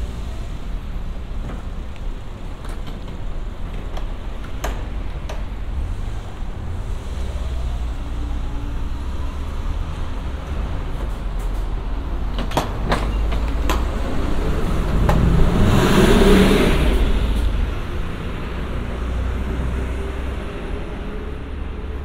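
Road traffic rumbling steadily along a city street, with one vehicle driving past close by about two-thirds of the way through, the loudest moment.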